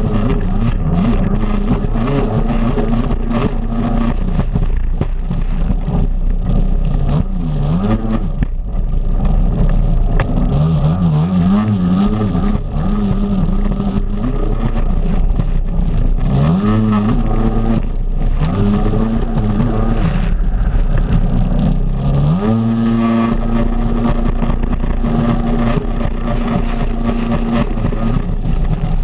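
Racing jet ski's engine running hard, its revs rising and falling again and again as the craft jumps and turns, then climbing and holding steady near the end. Water spray and wind on the mounted camera's microphone crackle over it.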